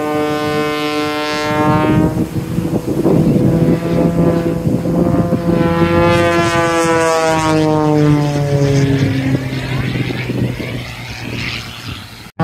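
Propeller aircraft flying past during an air show display, a loud droning tone that slides down in pitch as it goes by. The sound cuts off abruptly just before the end.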